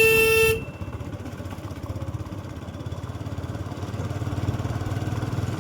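A vehicle horn holds one steady note and cuts off about half a second in. Then a motorcycle engine runs with a low hum that grows louder toward the end.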